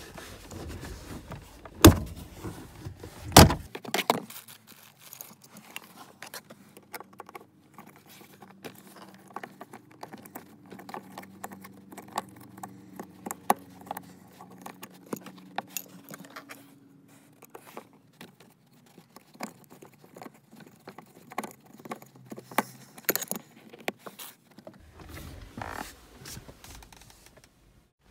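Screwdriver working a screw out of a car's plastic center-console side trim: two loud knocks about two and three and a half seconds in, then a long run of small clicks and scrapes of the tool against screw and plastic.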